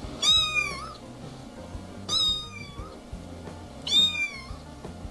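A young cat meowing three times, each a short high-pitched meow, about two seconds apart.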